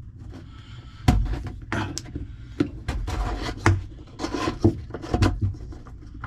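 Irregular knocks, clicks and scraping of parts being worked loose inside a dishwasher's drain as the old drain piston and nut are taken out, starting about a second in.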